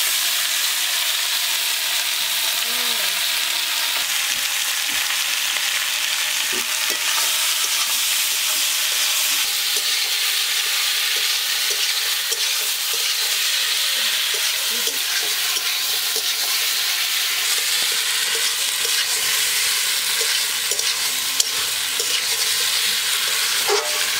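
Spice-coated potatoes and vegetables sizzling steadily in hot oil in a kadai.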